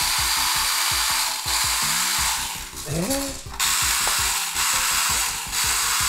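The Mini 4WD motor of a Marushin Magnum Shooter toy BB gun running with a loud, drill-like whir over a rapid, irregular clatter of mechanical clicks as it fires BBs in semi-auto. The whir drops out briefly about three seconds in.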